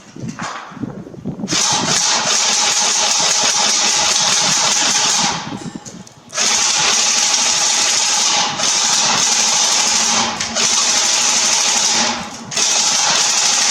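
Tokyo Marui SCAR-H airsoft electric gun firing on full auto: a string of long bursts of rapid mechanical clatter, about five of them, each lasting one and a half to four seconds, with brief pauses between.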